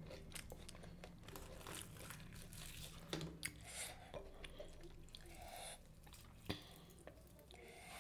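A person chewing food close to the microphone: repeated crunches and wet mouth clicks.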